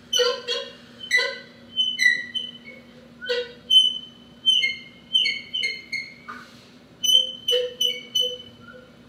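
Solo drum kit played in free improvisation: about a dozen sparse, irregular light strikes, each leaving short, high, bell-like metallic ringing tones, some with a lower ringing tone beneath.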